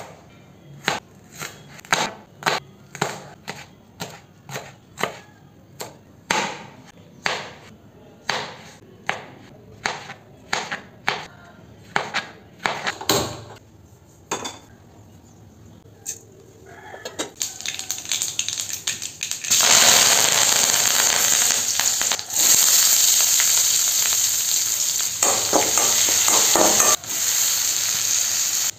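A knife chopping an onion on a plastic cutting board, knocking about twice a second. Then loud, steady sizzling from about two-thirds of the way in as chopped onion and tomato fry in hot oil in an aluminium kadai.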